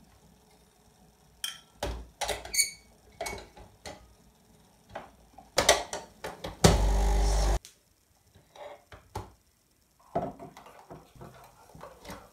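Glass cup and spoon clinking and knocks from handling the capsule coffee machine, then its pump buzzing loudly for about a second before cutting off suddenly. Lighter clinks of a spoon in the glass follow.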